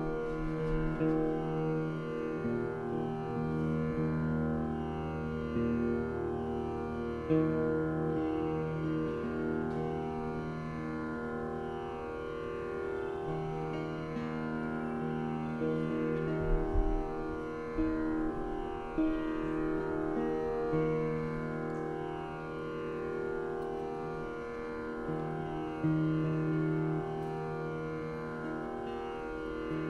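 Saraswati veena playing a Carnatic krithi in raga Khamas: plucked notes held long and moving from note to note.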